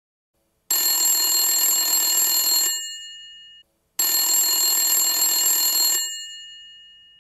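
Telephone bell ringing twice, each ring about two seconds long, with the bell tones fading away after each ring.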